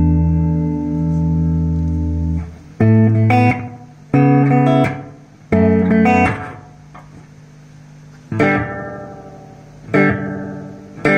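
Guitar chords played through a Toa EMX-10 echo mixer, with the pitch bent by pressing on the unit. A held chord with a slight waver in its pitch gives way to short chords about a second and a half apart, then, in the last few seconds, chords left to ring out and fade.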